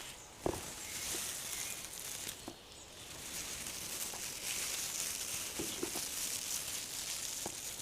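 Soft rustling that swells and fades, with a few quiet taps or snaps along the way.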